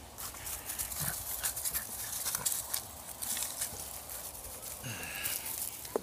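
Footsteps crunching irregularly through dry leaves and grass, mixed with handling knocks as the camera is picked up and carried. A brief pitched sound comes about five seconds in.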